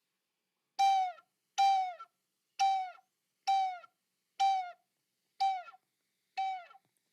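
A bird calling seven times, about once a second: short, nasal calls with many overtones, each dropping in pitch at its end.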